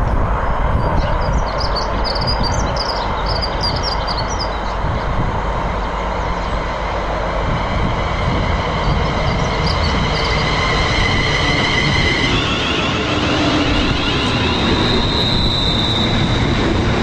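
London Midland Class 350 Desiro electric multiple unit running in and drawing alongside the platform, with a steady rumble from wheels and body. The electric traction whine rises from about eight seconds in and shifts to a higher whine about twelve seconds in as the train comes past.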